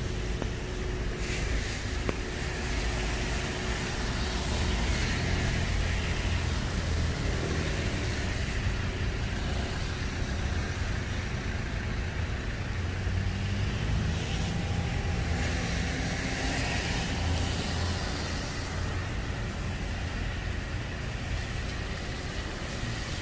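Road traffic on a rain-wet road: tyres hissing on the wet surface over a low engine rumble, swelling and fading as several cars pass one after another.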